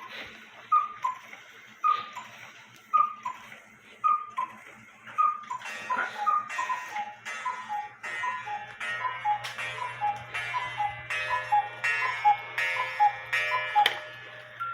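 Cuckoo clocks calling: one clock's two-note falling cuckoo call repeats about once a second. About five seconds in, a second, lower cuckoo joins it and calls faster, over a light clock ticking.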